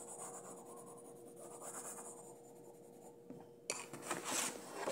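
Pen scratching on paper as a drawing is sketched. Near the end comes a sharp click, then a second or so of louder rustling.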